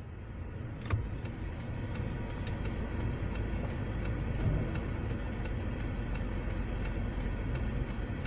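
Low, steady engine and road rumble of a car moving slowly, heard from inside the car. There is a sharp click about a second in, and from about two seconds on a light, regular ticking, about four a second.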